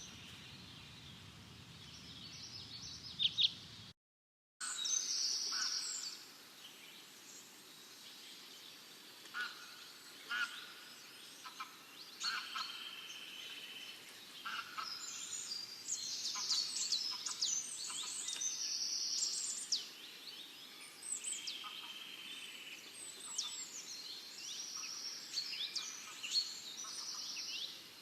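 Small birds singing after a short cut, several voices overlapping. The song is high chirps, quick falling whistles and buzzy trills of about a second each, scattered throughout. Before the cut there is a few seconds of hazy animal or outdoor sound.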